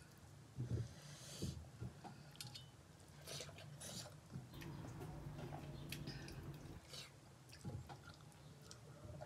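Faint chewing of food, with soft wet squishing and scattered light clicks as fingers mix wheat-flour dhendo into mutton curry gravy on a metal plate.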